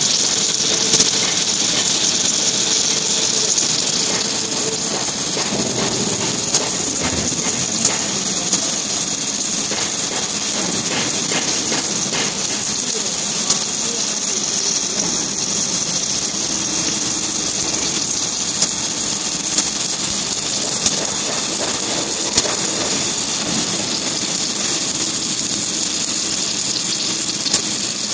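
Submerged arc welding machine running a seam under its flux, giving a steady hiss with scattered sharp clicks.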